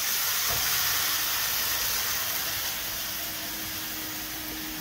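Lamb pieces sizzling as they go into a hot pot on a gas stove: a steady hiss that eases slowly, with a light knock about half a second in.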